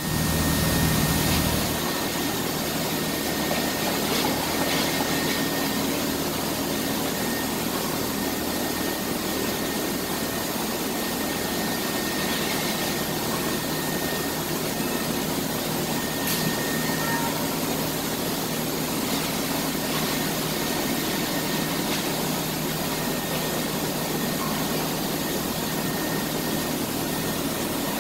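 Steady roar of industrial machinery running, with a faint high whine held through it.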